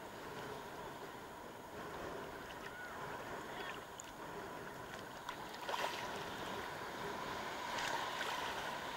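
Steady wash of ocean surf and wind on an open beach, with a few faint short chirps and clicks over it.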